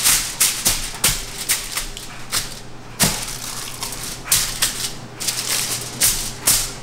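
Aluminum foil crinkling and crackling as it is pressed and folded around a sheet pan, in a run of irregular sharp crackles, several a second.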